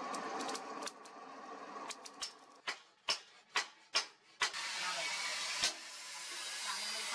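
A string of sharp hammer blows on a red-hot leaf-spring steel cleaver blank on the anvil, about seven strikes roughly half a second apart starting about two seconds in, over the steady rushing hiss of the coal forge.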